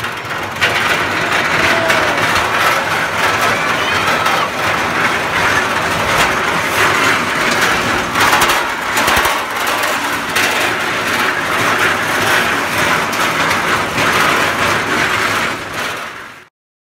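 Small fun-fair ride train running along its rail track: a steady loud rumble with many short rattles and knocks from the cars and wheels. It cuts off abruptly near the end.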